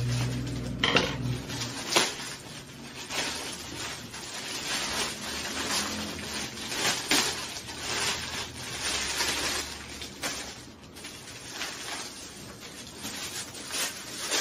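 Plastic mailer bag crinkling and rustling as it is snipped open with scissors and a plastic-wrapped purse is pulled out, in a run of irregular crackles.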